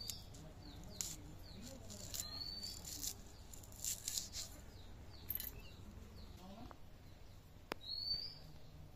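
Green chillies being slit on a boti blade: a few short crisp cutting clicks in the first half, with small birds chirping around, one clear chirp near the end.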